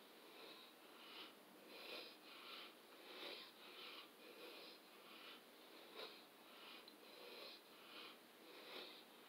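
Faint, quick heavy breathing of a woman exerting herself in a workout, short breaths in and out at about two a second.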